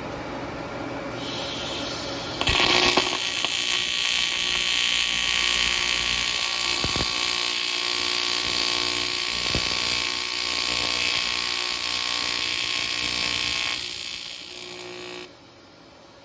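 AC TIG welding arc on aluminium, run at 60 Hz: a steady, high-pitched buzz that strikes about two and a half seconds in, drops in level near the end as the arc is ramped down, then cuts off.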